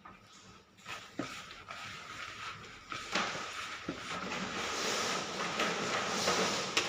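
Coconut and condensed-milk mixture being stirred and pressed in a bowl: a rustling, scraping sound with a few sharp knocks of the utensil against the bowl, getting busier and louder about three seconds in.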